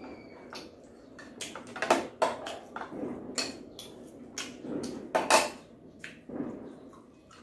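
Irregular clinks and knocks of plates, bowls and spoons while a meal of rice and beef is eaten by hand, with softer chewing and mouth sounds between them. The loudest clinks come about two seconds in and past five seconds.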